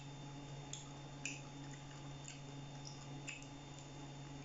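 Faint eating sounds: a few soft clicks and crackles as crispy fried chicken is pulled apart by hand and eaten, over a steady low hum.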